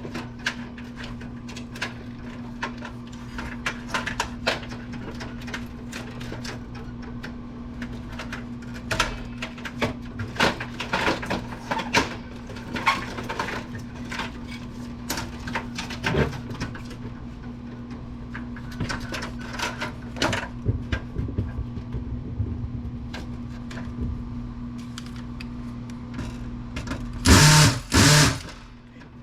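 Irregular clicks, taps and rattles of small metal and plastic parts being handled and pried as a computer DVD-ROM drive is dismantled for its steel, over a steady low hum. Two loud, short bursts come near the end.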